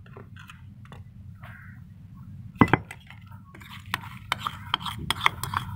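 A utensil clinking and scraping against a stone mortar of ground herbs as the mix is stirred. A single sharp knock comes about halfway through, then clicks about three a second, over a steady low hum.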